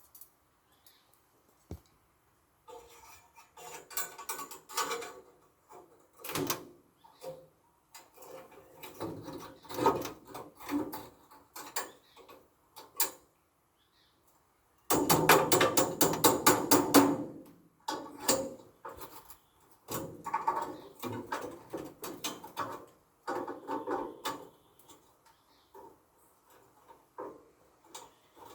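Bursts of mechanical clicking and rattling, with a dense run of rapid clicks about halfway through.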